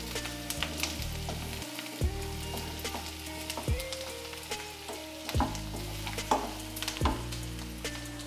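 Chopped onion frying in hot oil with tempered mustard seeds, cumin and dal in a kadhai: a steady sizzle with scattered pops, and a few louder clicks and scrapes of stirring.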